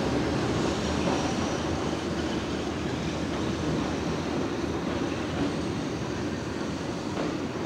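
Keihan 600 series two-car electric train running toward the listener, a steady low rolling noise of wheels and motors on the rails.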